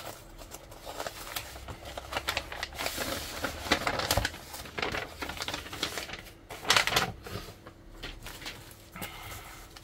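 Paper envelope and plastic sleeve rustling and crinkling as a booklet is pulled out and unwrapped by hand: a run of quick, irregular crackles, loudest about seven seconds in.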